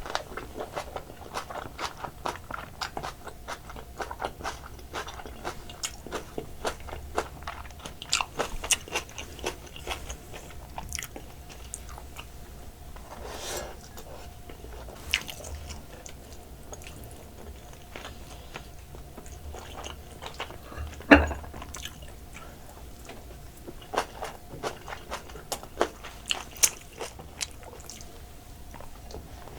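Close-up eating of soy sauce marinated raw crab: shell crunching and cracking between the teeth, with biting and wet chewing, in quick irregular crackles. One sharp knock, the loudest sound, comes about two-thirds of the way through.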